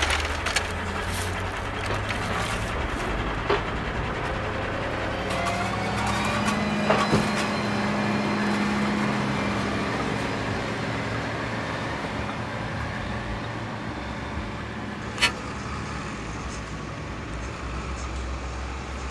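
Steady motor-vehicle rumble, rising in pitch for a few seconds around the middle, with a few sharp clicks.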